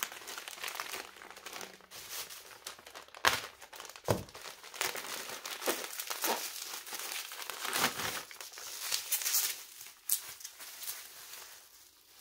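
Thin plastic delivery bags and packaging crinkling and rustling as they are handled, with several louder, sharper crackles.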